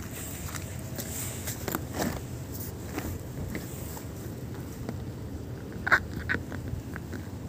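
Scattered light clicks and crunches from someone walking and handling a phone, over a steady low outdoor rumble, with a sharper click about six seconds in.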